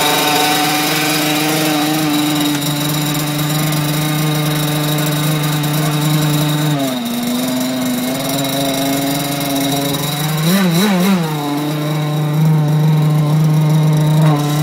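Small two-stroke petrol engine of an RC boat idling steadily out of the water. Its pitch drops slightly about halfway through, and there are three quick throttle blips about two-thirds of the way in.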